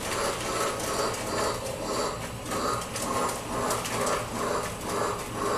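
Lionel LionChief Bluetooth model train running on its track: its motor and gearing whirr and its wheels clatter on the rails, in an even pulse about two to three times a second.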